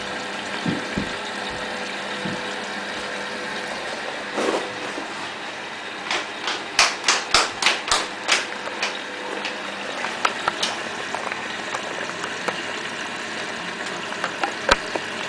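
Indesit WIE127 washing machine humming steadily, with a quick run of sharp clicks, about three a second, between about six and nine seconds in, and a few scattered clicks after.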